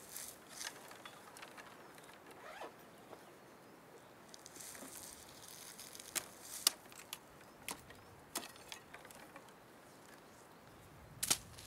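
Twigs being cut and broken off a tree: a few sharp snaps and clicks, the loudest about two thirds of the way in and another near the end, with brief rustling of branches before them.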